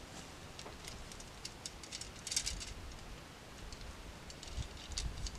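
Faint, scattered light ticks and rustles, with a short cluster of them a little past two seconds in; a low rumble of wind on the microphone comes up near the end.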